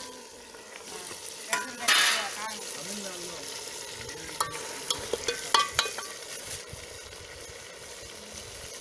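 Metal spoon stirring chicken, tomatoes and coriander in a metal cooking pot, clinking against the pot several times over the sizzle of the frying oil.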